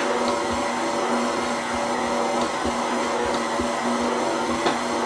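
KitchenAid Classic tilt-head stand mixer running steadily, its motor giving an even hum and whine as it mixes a soft, sticky sweet-roll dough. A faint low knock repeats about twice a second.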